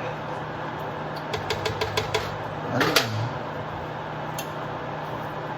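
Steady mechanical hum, with a quick run of light clicks about a second and a half in and a short louder sound about three seconds in.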